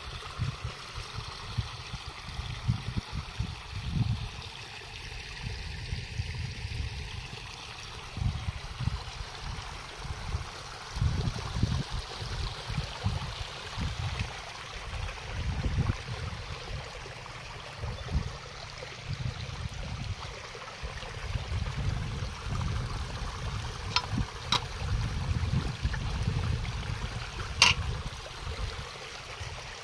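Muddy rainwater runoff flowing and splashing along a field channel and past a gate, with gusty low buffeting on the microphone. A few sharp clicks come near the end.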